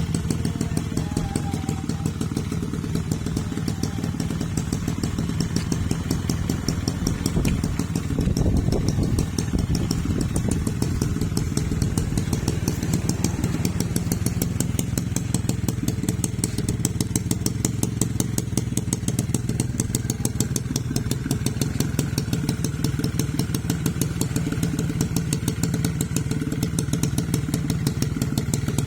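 1997 Suzuki Tornado GX motorcycle engine running steadily at low revs, with a brief rise in level about eight seconds in.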